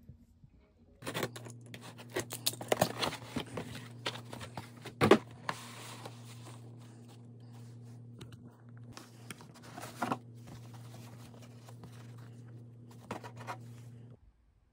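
Cardboard gift box and its packaging being handled during an unboxing: rustling and crinkling with scattered light taps and clicks, and one sharper knock about five seconds in. A steady low hum runs underneath.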